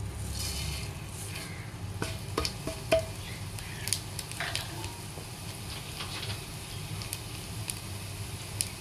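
Hot ghee sizzling in a pot as fennel seeds and whole spices fry, with a wooden spatula stirring and several sharp taps against the pot. This is the tempering stage, the spices frying until fragrant.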